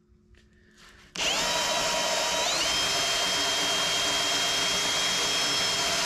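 Power drill turning a spot weld cutter into a spot weld on a 2007 Ford Explorer's body panel: a steady motor whine with the cutter grinding the sheet metal. It starts suddenly about a second in, and its pitch steps up about a second later, then holds.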